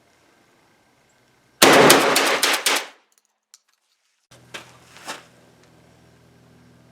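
JTS AK-style 12-gauge semi-automatic shotgun fired rapidly, several shots in quick succession over about a second and a half. This is followed a little later by two lighter metallic clinks.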